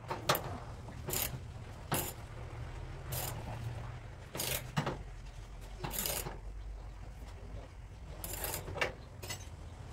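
Hand tools clinking and scraping against a car's front brake disc and hub: a few short, separate clinks and scrapes at irregular intervals of a second or so.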